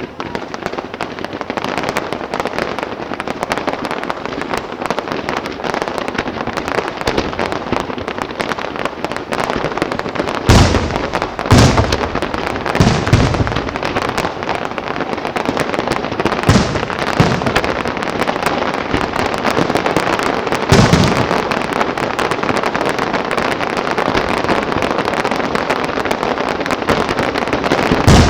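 Aerial fireworks going off: a dense, unbroken stream of crackling pops, with heavier booms in a cluster about ten to thirteen seconds in, another near seventeen seconds, one near twenty-one seconds, and one at the very end.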